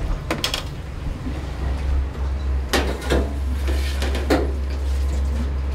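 Several short knocks and clatters, two close together early and four spread over the middle, over a steady low rumble that grows louder after a second or so.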